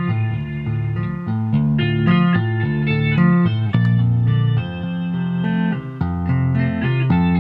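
Ten-string Chapman Stick played by two-handed tapping: a low bass line sounding under a higher melody, each note changing in turn.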